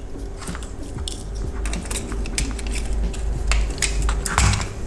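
Handling noise from a printed circuit board being slid and turned on a work mat: irregular clicks, taps and scraping, busiest in the second half.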